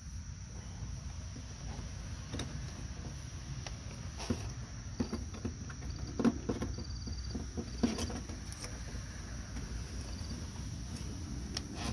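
Faint, irregular clicks and scrapes of a claw pickup tool working inside a van's headlamp housing, fishing for a loose bulb, over a steady low hum and a steady high whine. Short high chirps come about halfway through.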